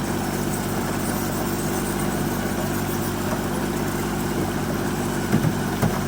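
A vehicle engine idling steadily, with an even, low running note.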